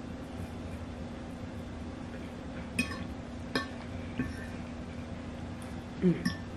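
Metal fork tapping and scraping on a glass plate, with a few sharp clinks about a second apart, over a steady low hum. Near the end comes a louder clink together with a brief low sound.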